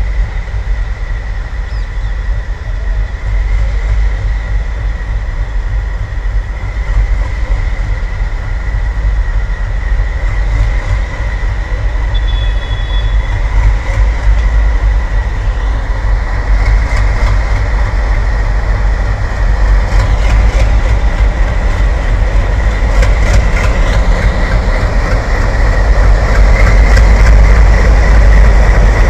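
Two coupled ALCO WDM-3A diesel locomotives, each with a 16-cylinder ALCO 251 engine, pulling a passenger train out under power. There is a deep engine rumble with a steady high whine, and it grows louder as they draw near. In the second half, quick clicks of wheels over rail joints join in.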